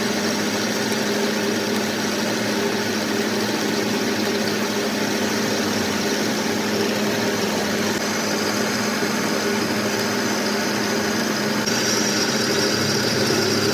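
A workshop machine running steadily, a constant hum under a broad hiss; a higher hiss joins near the end.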